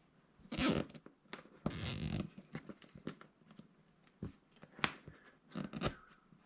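Handling noises: two brief rustling or scraping bursts, then a few scattered sharp clicks and taps.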